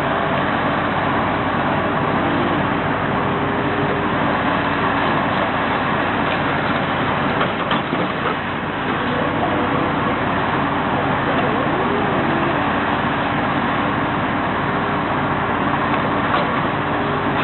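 Heavy engine-driven machinery running steadily, with a low engine hum under a dense mechanical noise.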